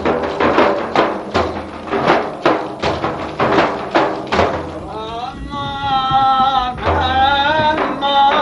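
Several large frame drums (daf) beaten together in a steady rhythm, about two to three strikes a second. About five seconds in, a man's voice begins a wavering, drawn-out dervish zikr chant over them.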